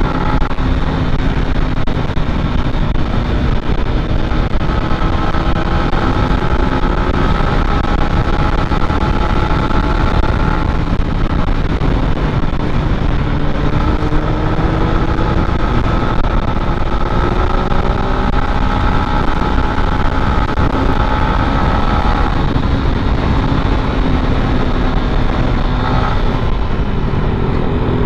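A small single-cylinder 150 cc motorcycle engine running at full throttle under way. Its pitch climbs slowly through each gear and drops back at a few gear changes, over a steady rushing of wind noise.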